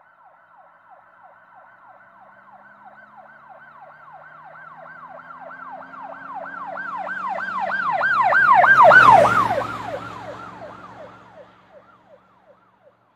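Emergency vehicle siren in a fast yelp of about three to four sweeps a second, with the vehicle's engine rumbling underneath. It grows louder as it approaches, is loudest about nine seconds in, then drops slightly in pitch and fades as it passes.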